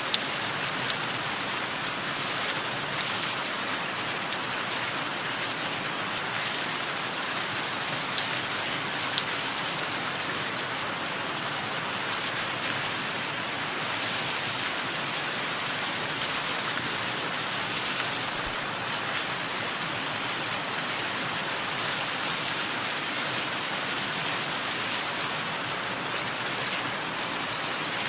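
Steady rain, with short high bird chirps and brief rapid trills every second or two.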